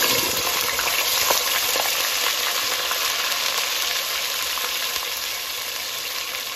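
Ground onion paste sizzling loudly as it hits hot oil with whole spices and is stirred with a wooden spatula. The sizzle is strongest at first and eases slightly over the next few seconds.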